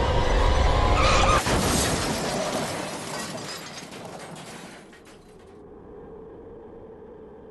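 Car crash sound effect: a sudden burst about a second in, a sharp impact with glass shattering, and the crash noise dying away over the next few seconds, leaving a faint steady tone.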